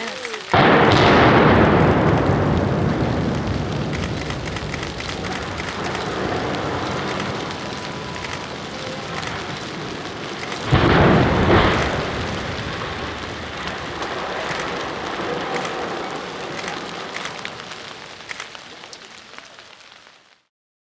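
Explosive demolition charges going off at the base of a 300-foot concrete power-plant smokestack, followed by a long rolling rumble as it comes down. About halfway through comes a second loud boom that also rumbles away, with scattered small cracks in between. The sound then cuts off suddenly near the end.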